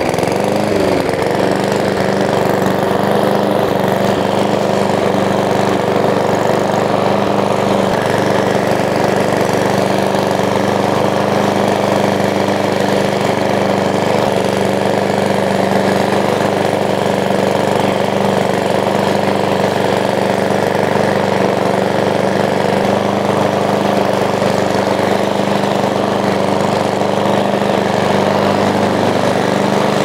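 Petrol walk-behind lawn mower engine running at a steady pitch while cutting tall grass.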